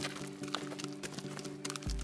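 Background music of held notes, with a deep bass note coming in near the end, over irregular light clicks.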